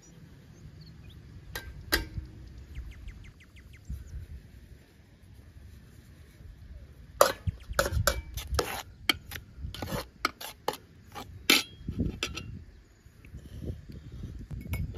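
Aluminium cooking pots, a metal sieve and a metal ladle clinking and knocking as they are handled and set down. A few clinks come near the start, then a quick run of sharp clinks from about seven to twelve seconds in.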